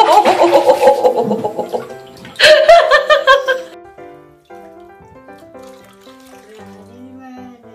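Rapidly repeated high squeals, sliding down in pitch, over splashing water for the first few seconds, with a second burst about two and a half seconds in. After that, quiet background music.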